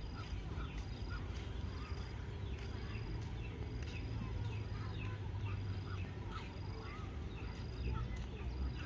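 Small birds chirping and twittering in the trees, with one short high note repeating about once a second, over a steady low rumble of wind on the microphone.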